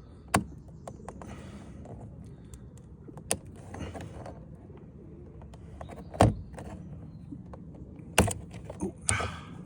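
Sharp plastic clicks and knocks, about four spaced a few seconds apart, with rustling and scraping between, as a factory puddle light is levered out of an Audi TTS door's lower trim with a small flat-head screwdriver.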